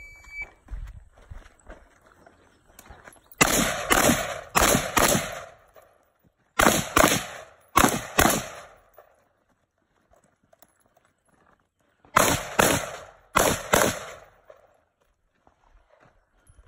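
Shot timer beep, then a pistol fired twelve times in quick strings: four shots, two pairs, a pause of about four seconds, then two more pairs.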